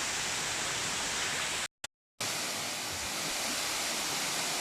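Steady rush of Hum Hum waterfall, a tall forest waterfall, its falling water making an even hiss. The sound cuts out completely for about half a second around two seconds in, then resumes.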